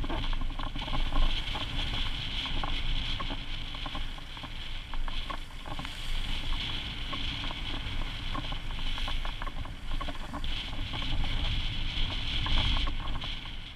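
Wind buffeting the microphone and water rushing past the hull of a Norseman 447 sailboat under sail in a rough sea, with many small scattered clicks and slaps.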